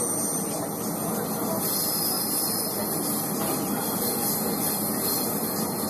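Passenger train running, a steady rumble and hiss heard from inside the carriage.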